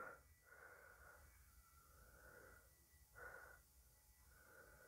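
Near silence: faint room tone, with one faint brief sound about three seconds in.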